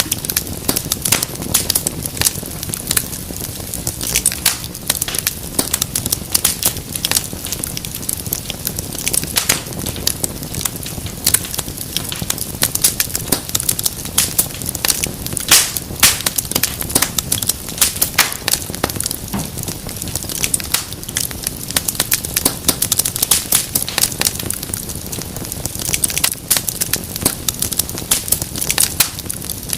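Fireplace fire crackling steadily, with many small sharp pops and snaps coming irregularly over a low hiss and rumble of flames.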